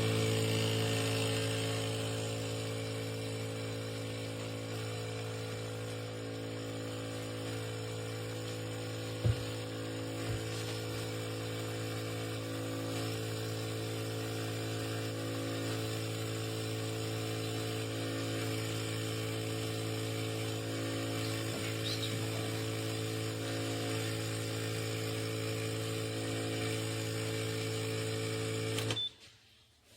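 HiBREW H10B espresso machine's pump running with a steady buzzing hum while pulling a shot, cutting off abruptly about a second before the end. A couple of brief clicks come about a third of the way in.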